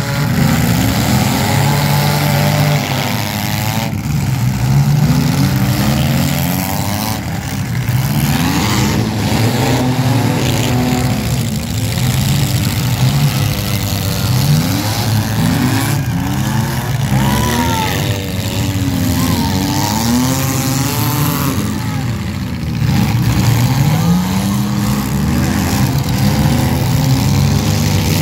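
Demolition derby cars' engines revving hard, several at once, their pitch rising and falling as the cars push and ram one another.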